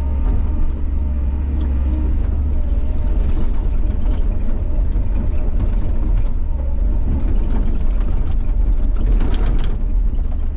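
Bobcat excavator's diesel engine running steadily under load while the bucket rips frozen ground, with scattered knocks and scraping as frost chunks break loose and a louder burst of knocking about nine seconds in.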